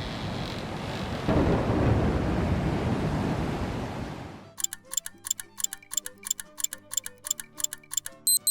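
A loud, even storm-like noise, like rain and thunder, fades out about four seconds in. Then comes steady clock-like ticking, about four ticks a second, each tick with a short pitched ring. A brief high beep sounds near the end.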